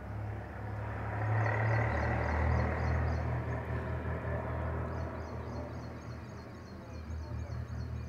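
A motor vehicle passing, a low engine rumble that swells about a second in and slowly fades. A faint high chirping repeats about four times a second behind it.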